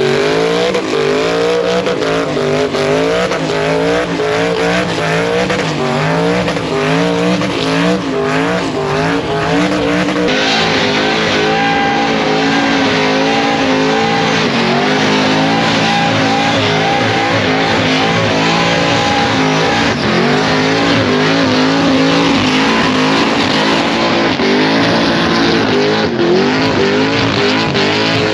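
Car engine revving hard, its pitch swinging up and down, with tyres squealing in a burnout; the tyre noise thickens about a third of the way in.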